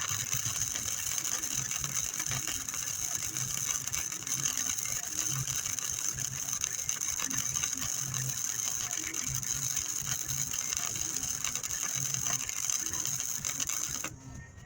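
Welding arc crackling steadily through one continuous weld bead of about fifteen seconds, which ends abruptly near the end.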